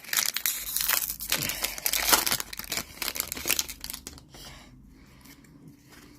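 Foil wrapper of a Pokémon trading card booster pack crinkling loudly as it is torn open and handled, dying down about four seconds in.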